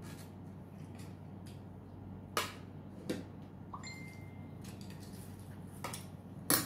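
Mealtime table sounds: a handful of short, sharp clicks and clinks of a spoon and fingers against plates while two people eat, the loudest near the end, over a low steady hum.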